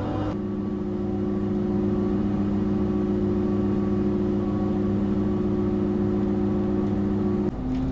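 Diesel engine of a GTW 2/6 railcar running steadily while the train stands, heard inside the passenger saloon as a steady low hum. Its note shifts just after the start and again near the end.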